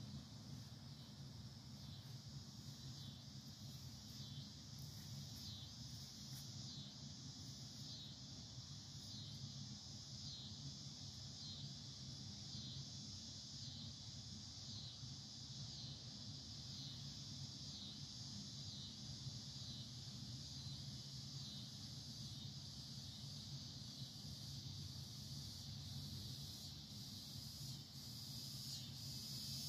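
Faint, steady high-pitched chirping of insects, pulsing in an even rhythm a little faster than once a second, over a low steady hum.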